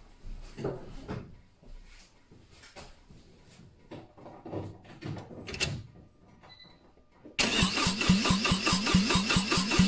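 Faint knocks and rustles, then about seven seconds in a car's starter suddenly begins cranking the engine over, an even, fast beat of compression pulses at cranking speed, about 200 rpm, without the engine firing.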